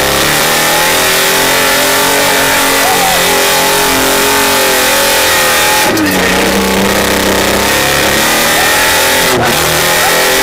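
Off-road 4x4 vehicle's engine running loud at high revs under load, with a brief dip in revs about six seconds in before climbing back up.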